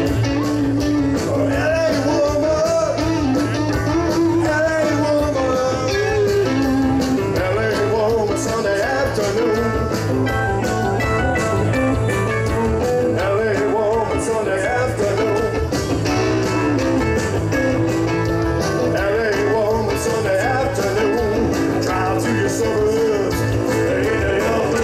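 Live rock band playing through a PA: electric guitar, bass, drum kit and keyboard, with a winding lead line over a steady beat.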